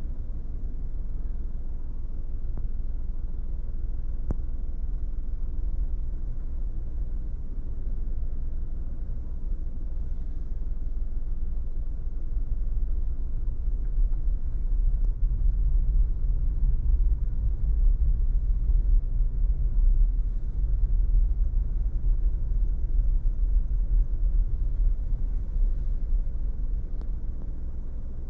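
A car driving along a road: a steady low rumble of road and driving noise, growing louder about halfway through and easing off near the end.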